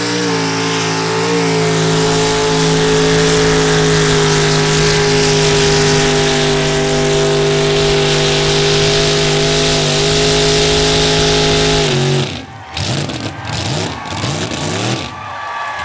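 Mud-bog pickup truck's engine held at full throttle, one loud steady high-revving note as it churns through the deep mud pit. The engine note stops suddenly about twelve seconds in.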